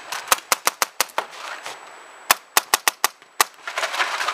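Paintball markers firing in quick volleys of sharp pops: a string of about six shots in the first second, then four more and a single shot a little after two seconds in.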